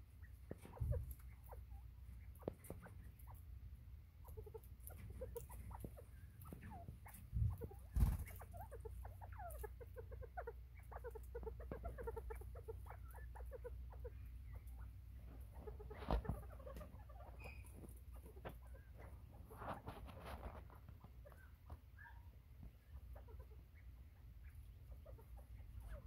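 Northern bobwhite quail foraging, giving many soft, low clucking and chirping notes. A few sharp knocks stand out, the loudest about eight seconds in and again around sixteen seconds.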